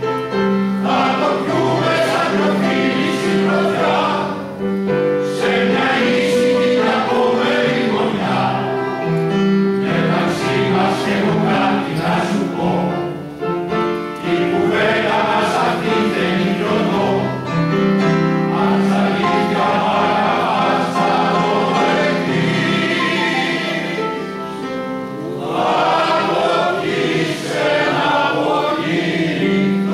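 Men's choir singing in harmony, holding long notes in phrases with short breaths between them.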